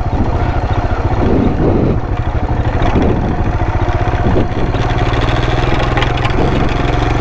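Royal Enfield Himalayan's 411 cc single-cylinder engine running at steady revs with an even beat as the bike rides over a muddy dirt trail.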